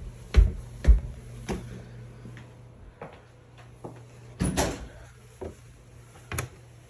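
Footsteps on a tile floor and wooden stairs, about two a second at first and then slower, with a brief louder rattle about four and a half seconds in.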